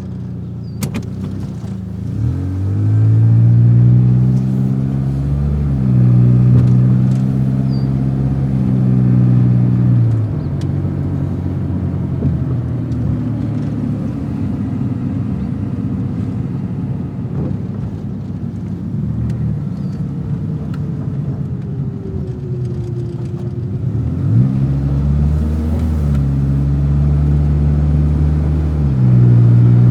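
Car engine running and pulling away, its pitch rising sharply and then dropping in steps several times, as with gear changes under acceleration.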